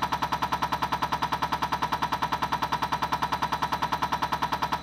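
Cummins M11 injector being driven on a Hartridge cam box test bench: a fast, even clatter of injection strokes, about eight a second, in step with the cam box turning at about 500 rpm.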